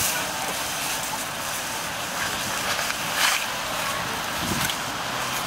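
A capybara feeding on leafy branches: leaves rustling and crackling, with a few sharper crunches, the loudest about three seconds in, over a steady outdoor hiss.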